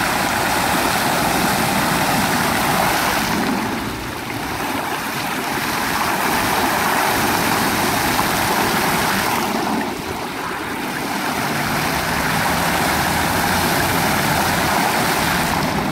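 Fountain water jets, a ring of arching jets and a tall central column, splashing steadily into the basin close by. The rush of water dips briefly twice.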